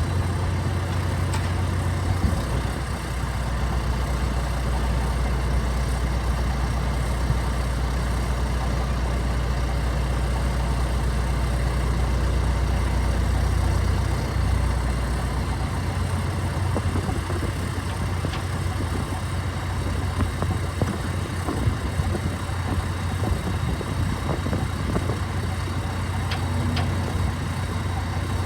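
Turbo diesel engine of a 2016 John Deere 310SL backhoe running steadily. Its low note drops about two seconds in and comes back up about halfway through. A few light clicks come near the end.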